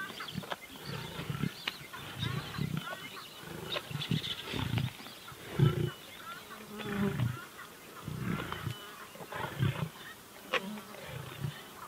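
Lions feeding on a carcass, making short low growls and grunts over and over, the loudest about halfway through, with high chirps throughout.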